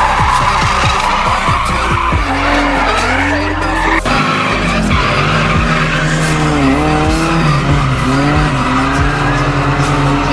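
Drift cars sliding sideways with tyres squealing and engines running, mixed with a music track that has a steady bass line.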